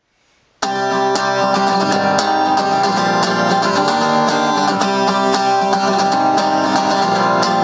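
Acoustic guitar music with steady plucked and strummed chords, starting suddenly about half a second in.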